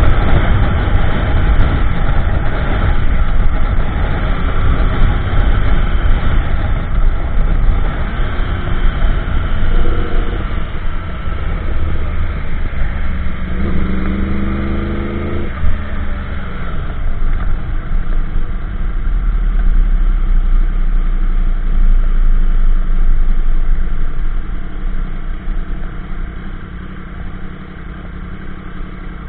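2015 Yamaha YZF-R1M's crossplane inline-four running through an Akrapovic slip-on, MJS link pipe and factory headers while cruising, mixed with heavy wind rush on the microphone. The engine note shifts in pitch around the middle, then the bike slows and the sound drops to a low idle near the end.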